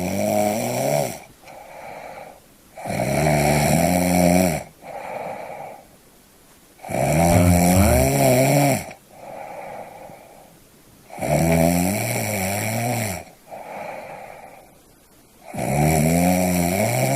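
A person snoring in a slow, steady rhythm, about once every four seconds. Each breath cycle is a loud snore of nearly two seconds followed by a quieter, shorter breath sound.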